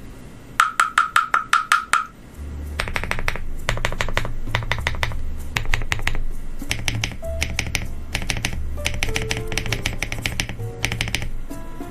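Typing on a custom ZOOM TKL mechanical keyboard with a polycarbonate plate, in quick bursts of sharp keystrokes, over background music with a steady bass line. The clicks start with a run of seven evenly spaced, ringing ones.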